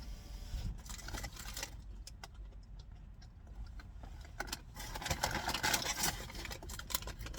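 Rustling and crinkling of fast-food packaging being handled, with scattered small clicks; the handling is busiest about a second in and again in the last few seconds.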